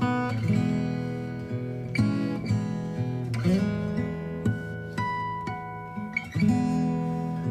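Background music: an acoustic guitar piece of plucked notes and strummed chords that change about every half second.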